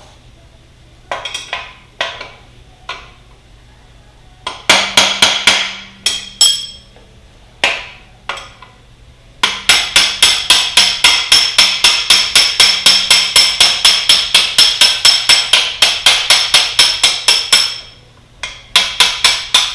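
Hammer striking a socket extension used as a drift to drive out a bolt on a 2002 Yamaha YZ125, each blow a sharp metallic ring. A few scattered blows come first, then a long fast run of about five strikes a second, then a few more near the end; the bolt is coming out smoothly.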